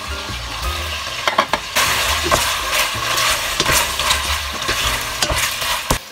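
Pork pieces sizzling in a stainless steel pot as a wooden spatula stirs them, with irregular clicks and knocks of the spatula against the pot. The sizzling cuts off near the end.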